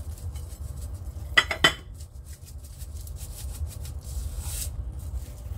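Two quick clinks of a ceramic serving platter about a second and a half in, each ringing briefly, as the rack of raw spare ribs is handled and turned over on it. Softer rustling of handling follows about four seconds in, over a low steady hum.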